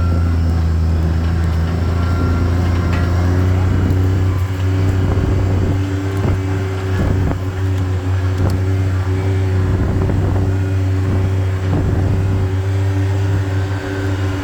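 Vehicle engine running at a steady drone while driving slowly along a dirt road, with scattered knocks and rattles from the bumpy track in the middle.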